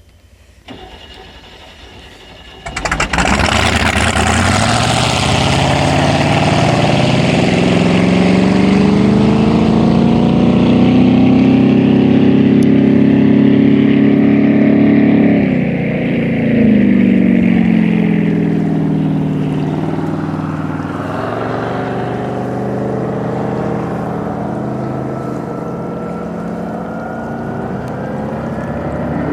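Chevrolet 409 big-block V8 in a flatbottom V-drive drag boat running hard. The engine comes on loud about three seconds in and its pitch climbs steadily, dips briefly about halfway, climbs again, then falls and settles lower near the end.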